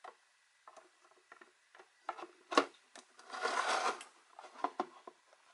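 Clear plastic display case being handled and fitted over a collectible figure's base: scattered light clicks and knocks, the sharpest about two and a half seconds in, and a second-long scrape of plastic sliding into place a little after.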